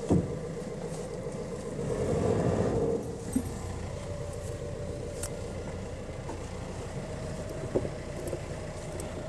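A RIB's engine idling steadily, swelling briefly for about a second around two seconds in, with a few light knocks.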